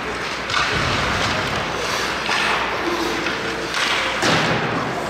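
Ice hockey game sounds in an arena: skates scraping across the ice in repeated hissing strokes, with scattered knocks of sticks and puck.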